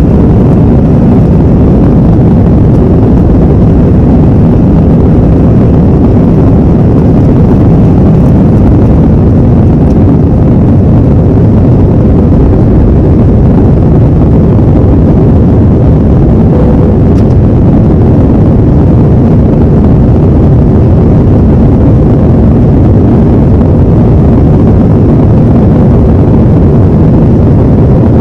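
Delta Airbus A321 jet engines and rushing air during takeoff and climb: a steady, very loud, low noise that holds level without change.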